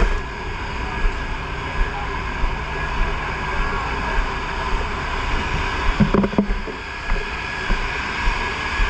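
Fire truck engine running steadily, with short knocks recurring under it every half-second to second and a brief clatter about six seconds in.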